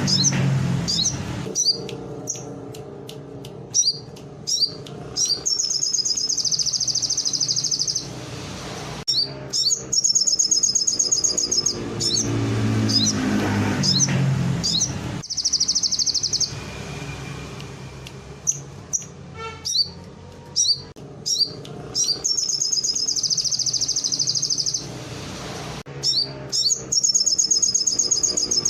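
A sogon songbird singing a canary-style song: quick sharp chirps and fast rolling trills, several trills held for a second or two each. A low rumble rises and falls underneath.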